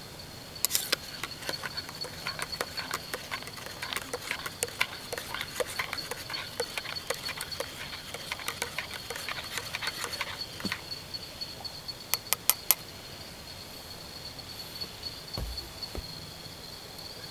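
A steady, high-pitched insect drone, like crickets, with irregular light clicks and taps over it. The clicks come thickly for the first ten seconds, then three louder ones follow close together a couple of seconds later.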